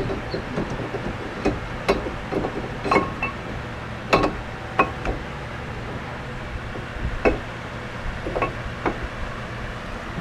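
Metal tools and brake parts clinking and knocking as they are handled, in irregular sharp strikes a second or so apart, over a steady low hum.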